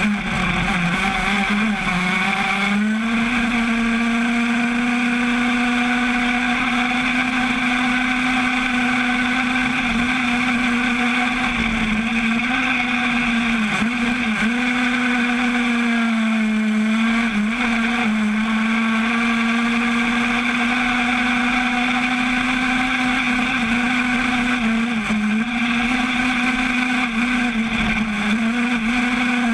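85 cc crosskart's two-stroke single-cylinder engine held at high revs, flat out in top gear: a steady high buzz that sags briefly a few times before picking up again.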